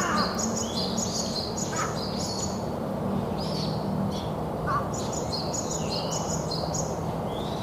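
Small birds chirping in a dawn chorus: quick, high, repeated chirps with no break, and a few lower, louder calls in between. A low, steady hum and background noise lie underneath.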